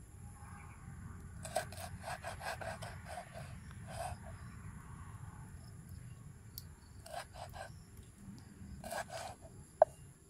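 Cleaver chopping fresh red chillies on a round wooden chopping board, striking the wood with each cut. A quick run of about ten chops begins a second and a half in, and short bursts of strokes follow later. One much louder knock comes near the end.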